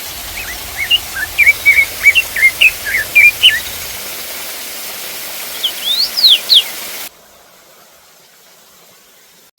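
Steady rush of a mountain waterfall with a bird chirping over it: a quick run of short notes, then a few higher sweeping calls. About seven seconds in, the sound cuts off abruptly to a faint hiss.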